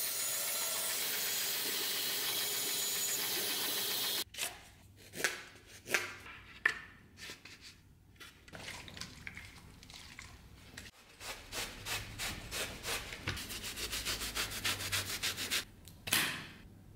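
A bandsaw cutting a pine board gives a steady whir for about four seconds, then stops abruptly. After it come scattered knocks from wooden pieces being handled, and near the end a fast run of rhythmic rubbing strokes on wood.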